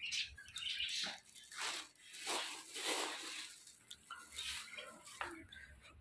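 Footsteps scuffing on a tiled rooftop floor at walking pace, about one step every two-thirds of a second, with a few light clicks.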